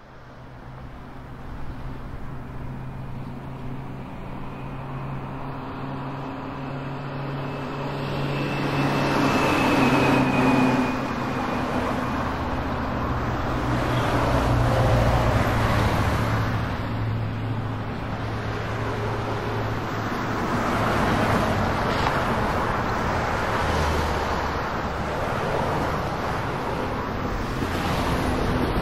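Street traffic ambience that fades in from silence: engines run steadily while vehicles pass in several swells.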